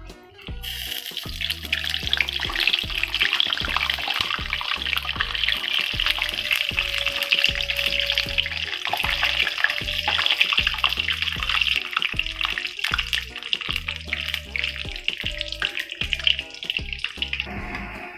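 Samosas sizzling as they deep-fry in hot oil: a steady hiss that starts about half a second in and stops shortly before the end. It plays over background music with a steady beat.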